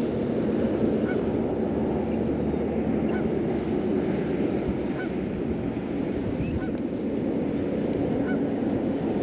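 Geese honking over a steady rush of wind on the microphone, with a faint short chirp repeating about once a second.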